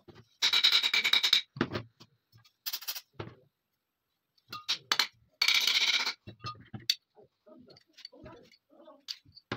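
Steel parts of a TT pistol's slide and barrel being worked apart by hand: two loud rattling runs of metal on metal, about a second each, near the start and about five and a half seconds in, with scattered small clicks and knocks between.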